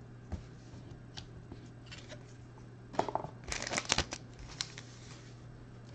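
Hands handling a stack of Panini Prizm football trading cards, with soft clicks and slides of card on card. About three seconds in comes a louder burst of rustling and crinkling as a foil-wrapped card pack is picked up.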